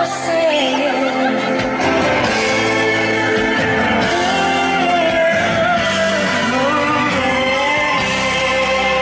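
A song with a singer's voice over a full backing, played loud through a sound car's loudspeakers.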